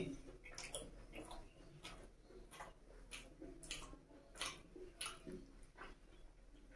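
A person chewing a mouthful of egg curry and puri, with soft, wet mouth clicks and smacks about every half second.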